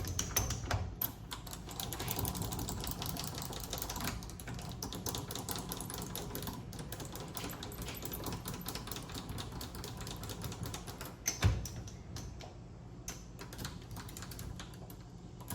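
Vevor MX400 mini lathe running with a steady low hum while a carbide insert tool is fed against the back edge of a spinning screw head, giving a fast, irregular ticking like typing. One sharper knock about eleven seconds in.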